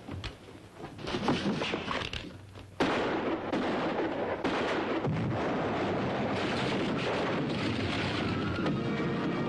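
A few sharp cracks like gunshots, then about three seconds in a sudden loud blast that runs on as a steady, heavy rumble of the dynamite-packed tunnel caving in. Dramatic orchestral music comes through near the end.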